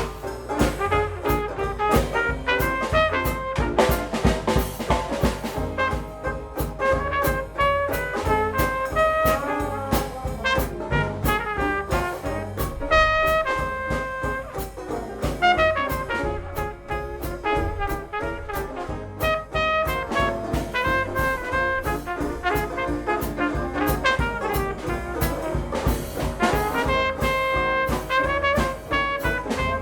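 Dixieland jazz band playing: a trumpet carries the melody over piano, banjo and a drum kit keeping a steady beat.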